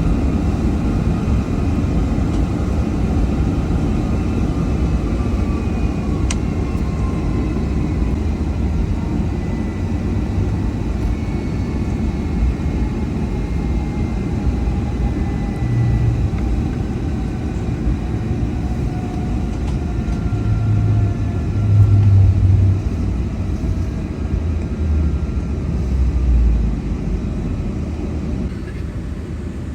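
Boeing 757-300 jet engines at takeoff power during the takeoff run: a steady heavy rumble with faint whining tones that slowly fall in pitch, and a few louder low swells about two-thirds of the way through.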